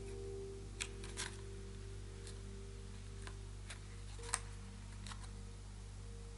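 Light, sharp clicks and taps, about seven in all, from a cardboard makeup-brush box being handled and prodded while looking for the way to open it, with the sharpest click a little past the middle. A faint steady hum lies underneath.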